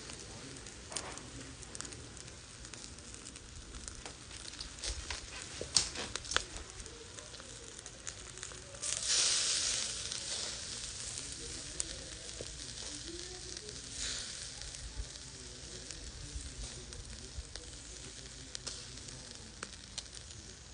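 Skewered chicken wings sizzling over charcoal in a shichirin grill, with a steady hiss and scattered sharp pops and crackles. About nine seconds in, a louder sizzle flares up as the skewers are turned and fades over a second or so; a smaller flare comes near fourteen seconds.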